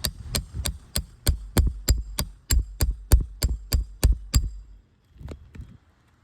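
Roofing hammer striking metal in a fast, even series of about fifteen blows, about three a second, each with a light metallic ring, as a shingle nail is worked loose. The blows stop about four and a half seconds in, followed by two softer knocks.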